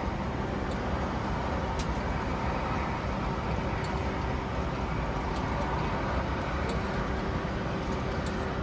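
Steady rumbling outdoor ambience of road traffic and industrial noise, with a few faint clicks.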